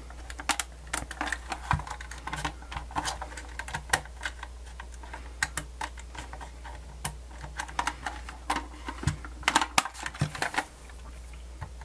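Hard plastic casing of a Sony D-142CK Discman portable CD player clicking and knocking as it is turned over and handled in the hands: irregular small clicks, with a denser run of louder clicks near the end. A low steady hum runs underneath.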